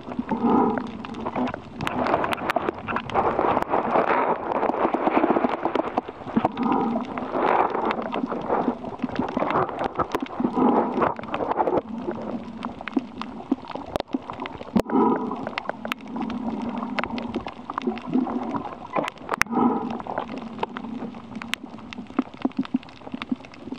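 Underwater recording of a diver's breathing: bursts of bubbling exhaled air every four to five seconds, with scattered sharp clicks and crackles between them.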